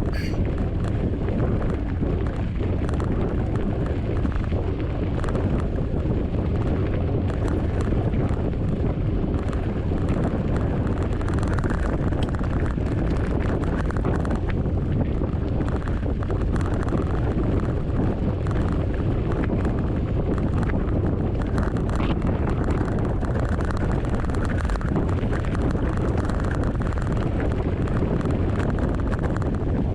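Wind buffeting the microphone over a steady low rumble from a mountain bike riding over rough ground, with faint rattles.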